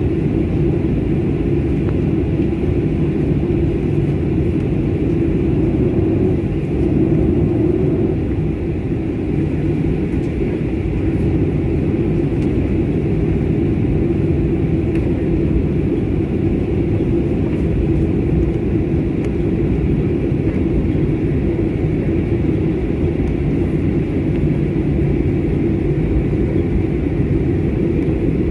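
Steady rumble and hum of a Boeing 737 MAX 9's CFM LEAP-1B jet engines at taxi power, heard inside the cabin as the airliner rolls along the taxiway. It swells briefly about seven seconds in.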